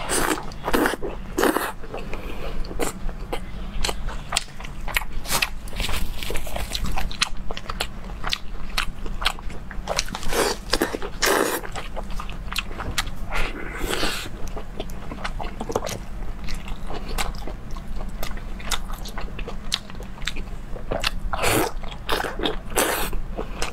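Close-miked eating: biting into and chewing meat-stuffed chili peppers, with crunches at irregular intervals and a few louder bites scattered through.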